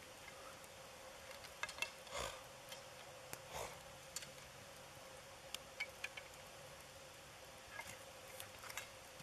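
Faint scattered clicks and short rustles of clothing and snow as a kneeling person shifts about in deep snow, over a faint steady hum.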